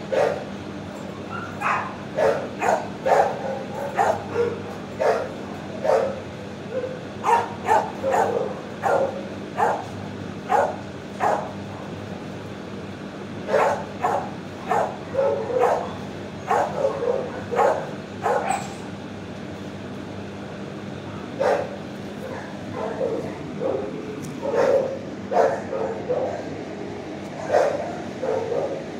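Shelter dogs barking over and over in the kennel ward, short sharp barks coming one or two a second with a couple of brief lulls, over a steady low hum.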